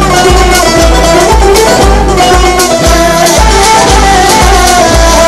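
Instrumental passage of a party election campaign song: a steady bass beat about twice a second under a held melody line, with no singing.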